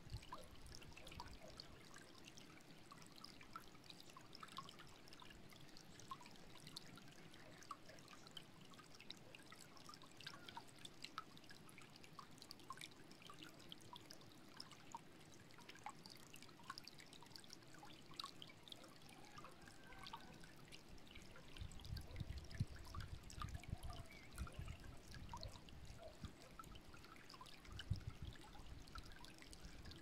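Shallow stream trickling over stones and leaf litter, faint and steady with many small bubbling clicks. Low gusts of wind rumble on the microphone in the last third.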